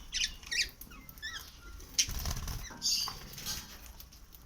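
Pet lovebirds chirping and chattering in short, high squeaks, some sliding up and down in pitch, with a sharp click about two seconds in.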